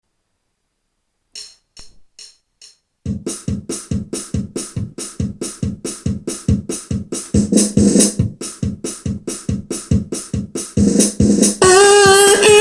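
Electronic keyboard's built-in drum-machine rhythm playing a steady, even beat, preceded by four light count-in ticks. Near the end a singing voice comes in over it with a long, wavering held note.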